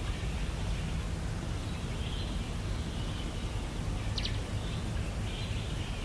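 Outdoor natural ambience: a steady low rumble with faint distant bird calls, and one short, sharp chirp a little after four seconds in.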